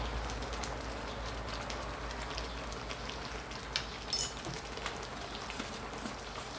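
Coconut-milk curry with snakehead fish and noni leaves simmering in a metal wok: a steady bubbling fizz with scattered small pops, and one short sharp click about four seconds in.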